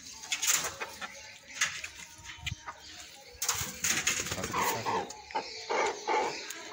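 Chicken clucking, a few short calls about two-thirds of the way in, among scuffing and rustling noises.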